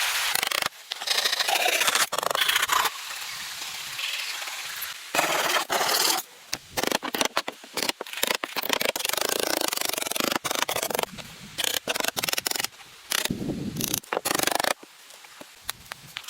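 Irregular rough scraping and rubbing noises that come in stops and starts, in bursts of a second or two.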